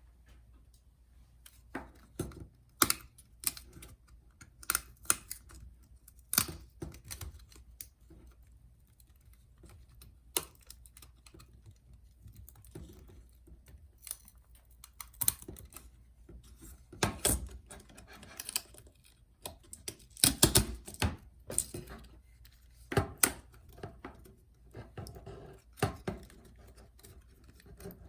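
Irregular sharp clicks and snaps of plastic as a 2016–2017 MacBook Pro keyboard is pried out of its top case piece by piece, the keyboard breaking apart as it comes out.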